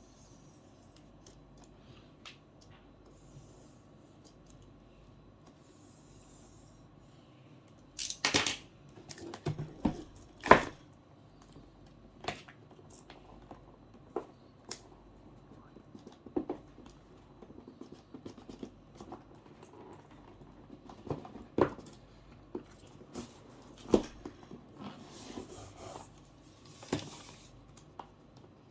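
Cardboard box and packaging being opened and handled: quiet for the first several seconds, then a loud noisy burst about eight seconds in, followed by scattered knocks, taps and rustles.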